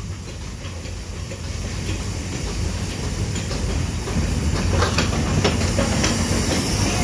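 Steam locomotive No. 850 rolling slowly past at close range: a low rumble that grows louder as it nears, steam hissing, and a run of sharp metallic clanks and clicks from the wheels and running gear in the second half.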